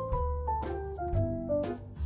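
Background music: a keyboard melody of held notes over sustained bass notes, with a steady beat about twice a second.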